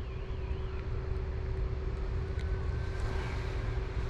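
Steady low outdoor rumble with a faint constant hum; a faint warbling tone stops about a second in.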